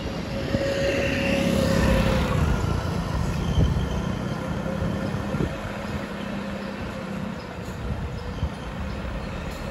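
Road traffic: a vehicle passes, loudest about two seconds in, over a continuous low rumble with a steady hum after it.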